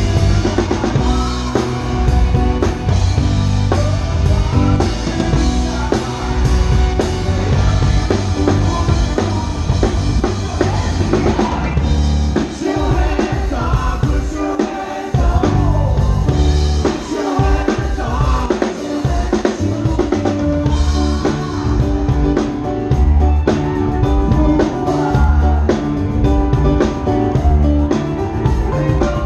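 A live rock band plays with drum kit, bass and a lead vocal, heard through the band's own monitor mix. The low end drops away for a few seconds partway through.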